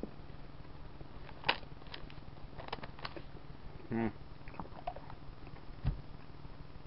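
A few sharp clicks and mouth noises from chewing a mouthful of hot-flavoured Skittles, with a brief hummed sound about four seconds in and a low thump about six seconds in, over a steady low hum.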